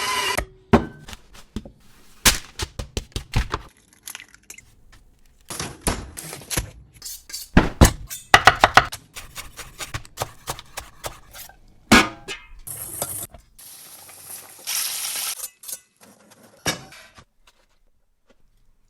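Kitchen food-preparation sounds: a run of separate knocks, taps and clatters of utensils and dishes, with a few short hissing or rustling stretches.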